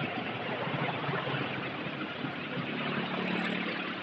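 Steady wind and road noise from riding a bicycle, with a motor vehicle's engine hum coming up and strongest in the last second or so.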